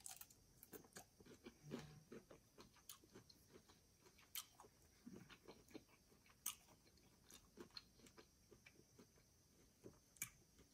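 Faint chewing of cold cooked shrimp eaten by hand, with scattered soft clicks from the mouth.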